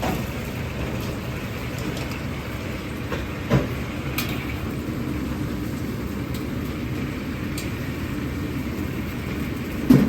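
Steady roar of a commercial kitchen's gas burners and extractor, with deep-frying sizzle underneath. Two sharp metal knocks, about three and a half seconds in and near the end.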